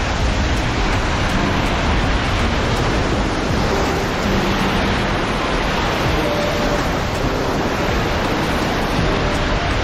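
Steady rushing and hissing of a cargo ship's bow wave breaking and foaming against the hull while the ship is under way, with wind noise on the microphone.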